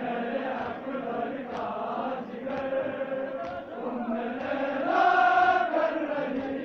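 A large crowd of men chanting together in unison, with the chant swelling into a louder, held note about five seconds in.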